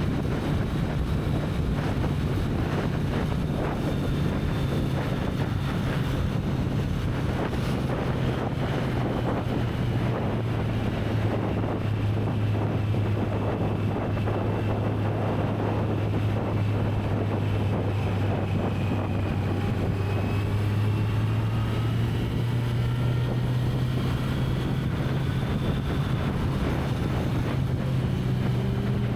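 Kawasaki Z900's inline-four engine on its stock exhaust, running at a steady cruise with a low, even engine note that shifts slightly in pitch partway through. Heavy wind noise buffets the microphone throughout.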